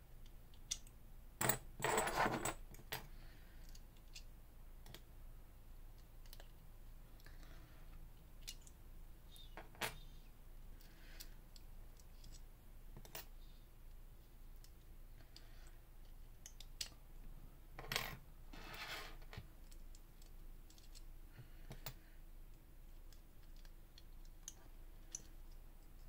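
Small metallic clicks and clinks from the steel levers of a Walsall Ace 7-lever safe lock as they are worked out of the lock case by hand, with two louder clusters of clinks about two seconds in and about eighteen seconds in.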